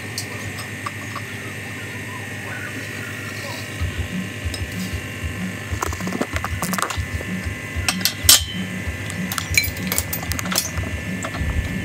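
Metal clinks and clanks from an engine hoist's hook and chain as a manual transmission hung in straps is set down on the shop floor and unhooked, over a run of low knocks that starts about a third of the way in. A steady high-pitched whine runs underneath.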